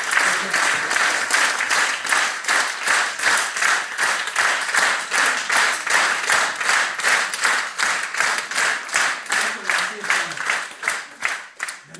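Theatre audience clapping in unison, a steady rhythm of about three claps a second, which fades and stops near the end.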